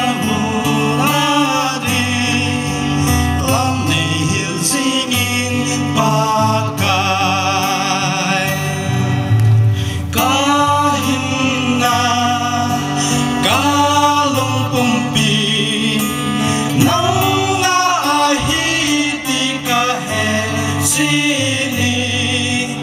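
A man singing a gospel song into a microphone, accompanied by a strummed acoustic guitar, with a long held note sung with vibrato about a third of the way in.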